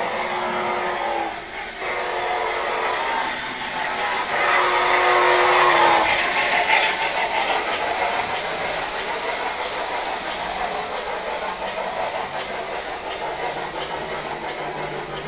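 Lionel O-gauge model train running past close by: the rolling rumble and clatter of the hopper cars' wheels on the three-rail track, with steady tones from the locomotive's sound system in the first few seconds. It is loudest about five to six seconds in, then settles to a steady rumble as the cars roll by.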